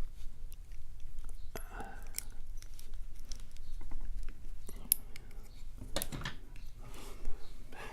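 Small metal tools clicking and scraping against the metal parts of a Master Lock Pro Series 6127 padlock, in irregular light clicks with a couple of denser scratchy patches.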